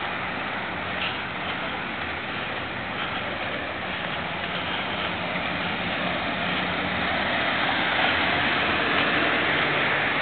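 City street traffic: the steady noise of passing vehicles, growing louder in the last few seconds as something passes close by.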